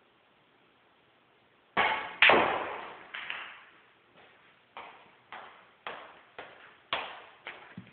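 Snooker cue tip striking the cue ball with a sharp click about two seconds in, followed at once by a louder knock of the ball, both ringing in a bare room. Then a run of lighter knocks about twice a second, like footsteps on a hard floor.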